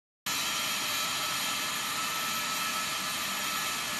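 Boeing C-17 Globemaster III's four Pratt & Whitney F117 turbofan engines running while the aircraft taxis: a steady hiss with several high whining tones. It starts abruptly about a quarter second in.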